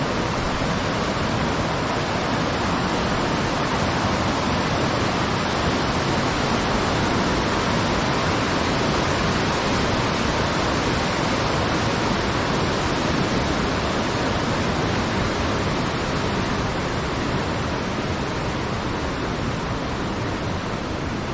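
Glacial meltwater river rushing over boulders as a steady, even wash of white-water noise, easing slightly near the end.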